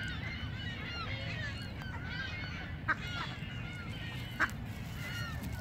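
Canada geese honking over and over, mixed with duck calls, as the flock gathers close to be fed. There is a steady low rumble underneath, and two sharp clicks come about three and four and a half seconds in.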